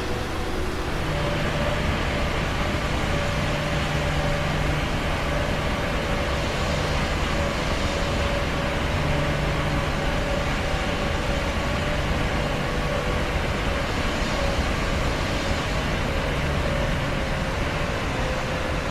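Airplane noise: a steady rumble and hiss with a low hum and a higher steady tone running through it, the low hum setting in about a second in.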